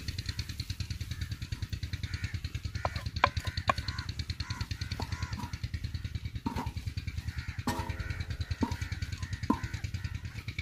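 Crows cawing several times, mostly in the second half, over a steady fast low mechanical throb. A wooden spatula knocks and scrapes now and then on an iron tawa as minced mutton and coriander are stirred.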